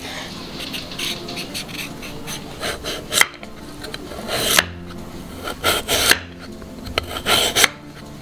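Kitchen knife slicing through a raw carrot on a wooden cutting board: a run of irregular crisp, scraping cuts, several ending in a sharp tap of the blade on the board.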